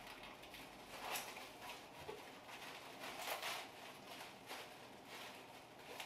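Plastic cling wrap rustling and crinkling in faint, irregular bursts as it is pulled and wound around the base of a deer skull's antlers. The loudest rustles come about a second in and about three seconds in.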